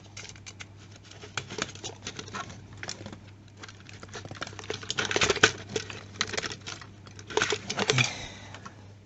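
Irregular clicking and rustling of hands handling a bundle of lamp wires and plastic terminal-block connectors, loudest about five seconds in and again near the end.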